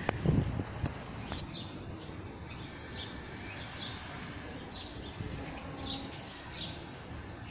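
Small birds chirping: short, high, downward chirps every second or so over a steady background hiss, with a brief low rumble at the start.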